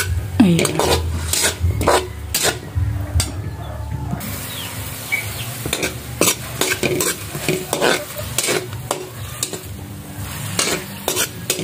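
A metal spoon scraping and clinking against a steel wok, stirring onion, garlic and tomato sautéing in oil, over a steady sizzle. The strokes come irregularly, with a short stretch of plain sizzling about four seconds in.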